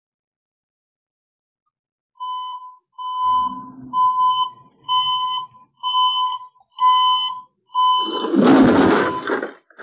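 Delivery van's reversing alarm beeping steadily, about one beep a second, seven times. About eight seconds in, a loud rough crunch lasting over a second as the reversing van's rear meets the chain-link fence.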